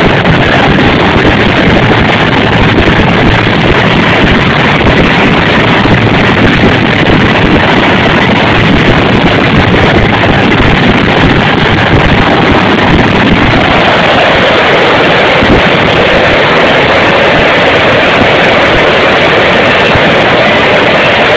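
Grand-finale fireworks barrage: a continuous rumbling din of overlapping shell bursts, so dense and loud that the single bangs run together and the microphone is overloaded.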